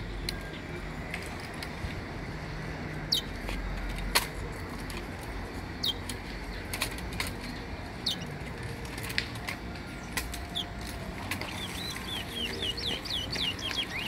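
A caged brown towa-towa (chestnut-bellied seed finch) calling in short, sharp notes that fall in pitch, one every second or two. Near the end it breaks into a quick run of repeated chirps.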